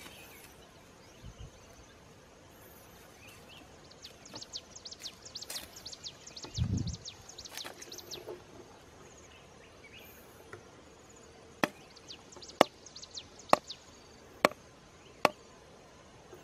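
Hands digging into dry soil and stubble: a run of crackling rustles with one dull thud partway through, then five sharp knocks about a second apart.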